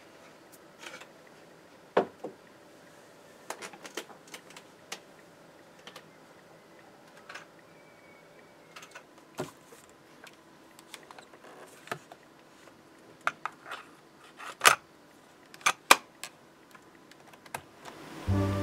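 Scattered clicks and knocks of a hand handling a Sony microcassette recorder and pressing its buttons, with a run of sharper clicks a few seconds before the end.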